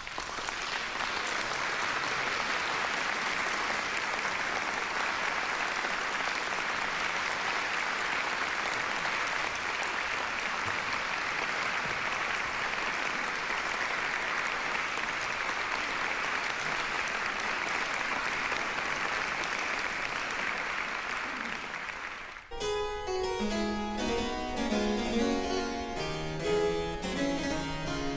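Audience applauding steadily for about twenty seconds, then a harpsichord begins playing a new piece near the end.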